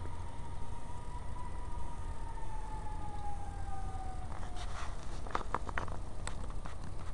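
A distant siren holding one tone that slowly falls in pitch and fades out after about four seconds. From about four seconds in, a run of sharp clicks and ticks follows, over a steady low rumble.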